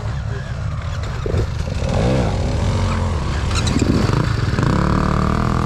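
Dirt bike engines running and being revved, the engine pitch rising and falling about two seconds in and again near the end.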